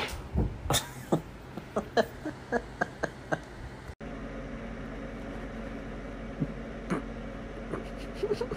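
A crash and thud as a wall tapestry comes down under a climbing cat, then a small hard object bouncing with quicker and quicker bounces until it stops. After that, a steady low hum with a few faint clicks.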